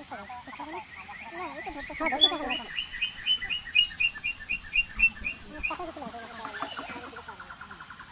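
A bird calling a quick series of about a dozen short, sharp high notes, about four a second, over men talking in the background. Near the end a faster, lower trill begins.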